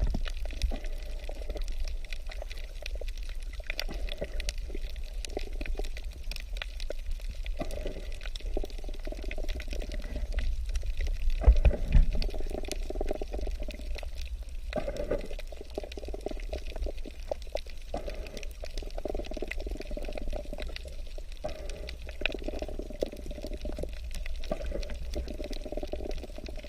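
Water noise recorded underwater in the sea: a steady low rumble with a washing, crackly water sound that swells and fades every few seconds, loudest about halfway through.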